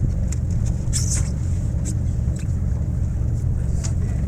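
A boat's engine running steadily underway, a deep continuous rumble, with short high ticks here and there over it.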